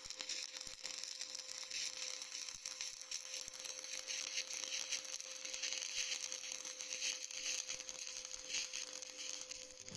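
A stick-welding arc burning a 6013 electrode, with a steady, fine crackling hiss and a faint constant hum.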